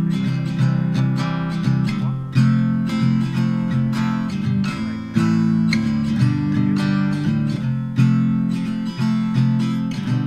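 Background music: acoustic guitar strumming chords, with a stronger strum about every three seconds.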